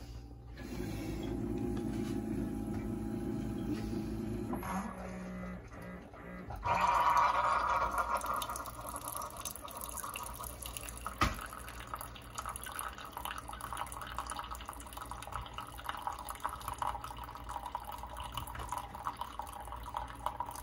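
Coffee brewing: a low steady hum for the first few seconds, then liquid trickling and dripping steadily into a cup from about six seconds in, with a single sharp click midway.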